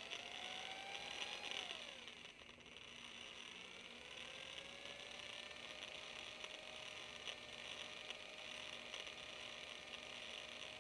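Electric drill spinning a diamond plateau hone in an oiled two-stroke outboard cylinder bore. The motor runs up, slows and stops about two seconds in, then spins up again and runs steadily.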